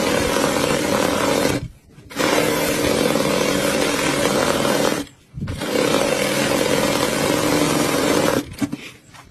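Automatic sewing machine running at speed with a loud, steady mechanical drone. It stops briefly twice and stops near the end.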